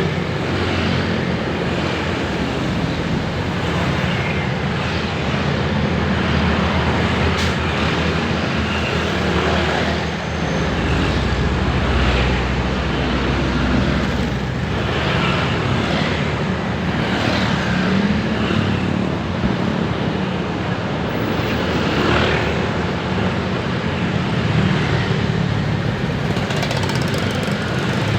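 Busy city road traffic: a steady stream of engines and tyre noise, with vehicles passing one after another. A heavier, deeper engine rumble passes about ten seconds in.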